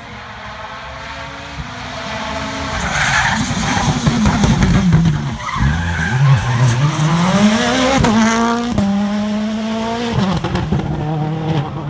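2017 World Rally Car with a 1.6-litre turbocharged four-cylinder engine coming through a rally stage, its engine note rising and falling as it brakes and accelerates through the gears, loudest as it passes. A couple of sharp cracks sound about two-thirds through, then the engine holds a steady note as the car drives away.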